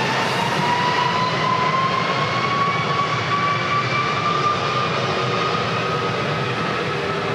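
Jet airliner's engines running loud: a rushing roar with a whine that slowly rises in pitch.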